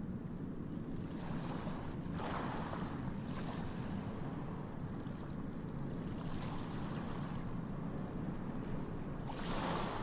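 Wind on the microphone outdoors: a steady low rumble that rises into louder rushing gusts about two seconds in and again near the end.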